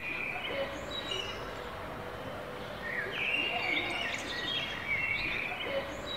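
Birds chirping and calling in short, scattered phrases over a steady outdoor background hiss.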